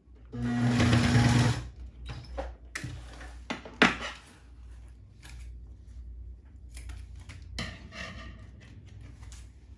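Singer Facilita Pro home sewing machine runs a short burst of stitching, about a second long, starting about half a second in, to finish off the piping seam. After it stops, the fabric is pulled out and handled, with a sharp click a few seconds later.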